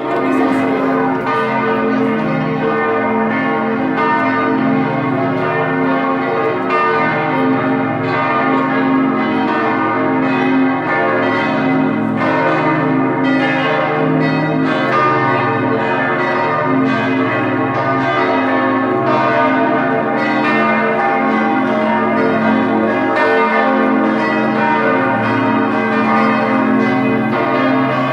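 Church bells pealing: several bells struck over and over, their ringing tones overlapping in a continuous loud wash.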